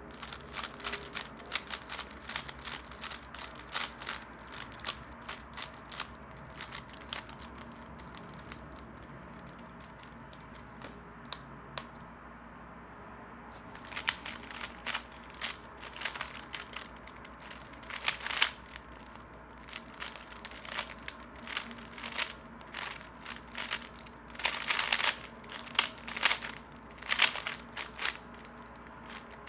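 A 3x3 Rubik's cube being turned fast: a rapid clatter of clicking layer turns. There is a pause of about four seconds roughly ten seconds in, then the turning starts again.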